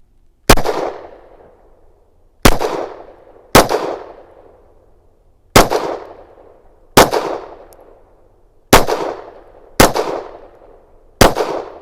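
Eight shots from a Canik METE SFT 9mm pistol firing 124-grain full metal jacket rounds, at an uneven pace about one to two seconds apart, each a sharp report with a short echoing tail. These are the last rounds of the magazine, which runs empty.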